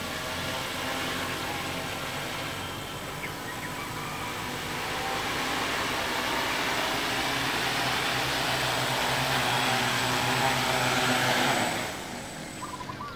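Propellers of a home-built four-rotor agricultural spray drone whirring steadily in flight, with a thin high whine over them, growing louder. The sound drops off sharply near the end as the drone sets down.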